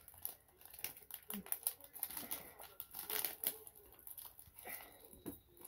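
A small foil toy packet crinkling and tearing as it is pulled open by hand, in irregular soft crackles.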